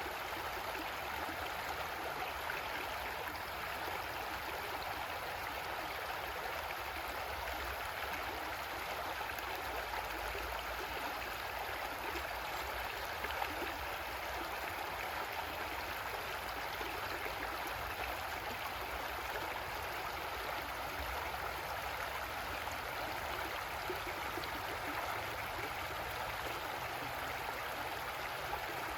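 Creek water flowing and burbling over rocks, a steady rushing with a faint low rumble underneath.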